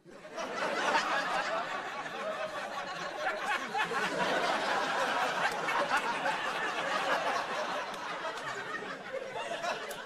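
Studio audience laughing, starting abruptly and going on steadily for several seconds.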